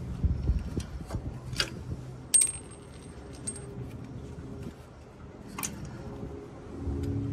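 Small metal clicks and clinks of sway bar end link hardware being handled and a nut threaded on by hand, with one sharp metallic click about two and a half seconds in that rings briefly. A low rumble of road traffic comes up near the end.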